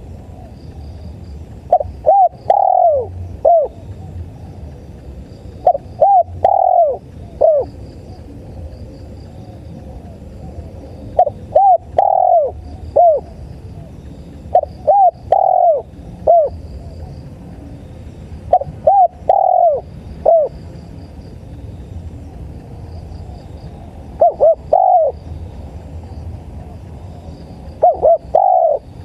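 Spotted dove (tekukur) cooing, a phrase of a few short coos and one longer down-slurred coo repeated about every four seconds, seven times. Crickets chirp faintly and steadily underneath.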